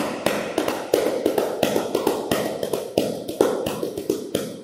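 Tchabeta, the filled, stitched napa pad of Cape Verdean batuko, slapped with the hands in a fast, steady rhythm of sharp strikes with regularly spaced louder accents.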